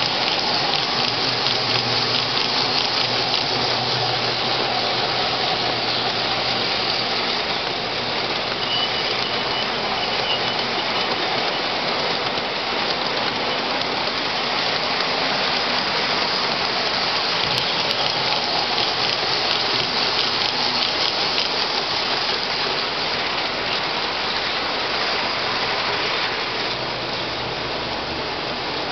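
O-gauge model trains running on layout track, a steady rumble and clatter of wheels on the rails as passenger cars and then a freight train roll past. The noise eases a little near the end as the cars clear.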